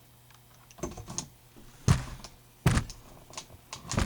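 A series of clicks and knocks from small hard objects being handled and set down on a workbench, the two loudest knocks about two seconds and two and a half seconds in.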